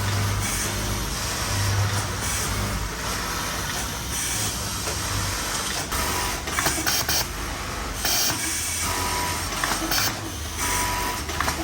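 Garment factory machinery running: a steady mechanical hum and whir of industrial sewing machines, with sharp clicks and clatter from about halfway on.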